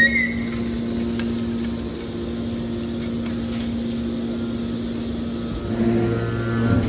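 Metal baler running: a steady machine hum with a constant tone, growing louder and deeper about six seconds in.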